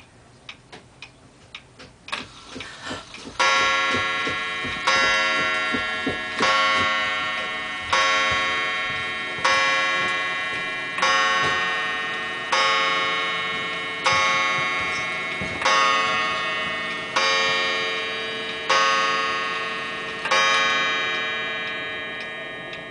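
Pendulum wall clock ticking, then striking twelve for noon: twelve ringing strokes on its gong about one and a half seconds apart, each dying away into the next.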